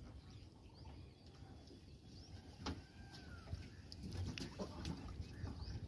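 Quiet outdoor ambience on a lake: a low water and wind noise, faint scattered bird chirps, and a few sharp knocks.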